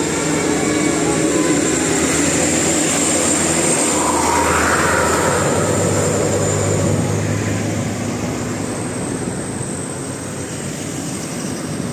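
Large bus diesel engine running loudly with a steady high whine. It swells about half a second in, stays loud for several seconds, then eases off.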